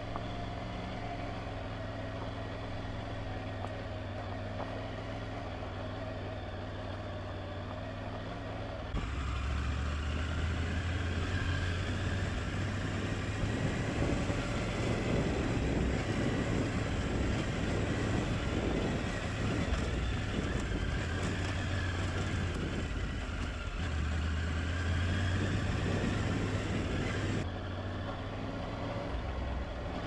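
Triumph Tiger 900 Rally Pro's three-cylinder engine running as the motorcycle is ridden along a mountain track. About nine seconds in the sound switches abruptly to a louder, rougher mix of engine, wind and tyre noise, and goes back to the steadier engine note near the end.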